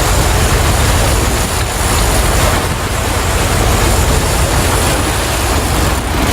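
Sport-fishing boat's engine running steadily at trolling speed, a low drone under a loud, even rush of wind and sea.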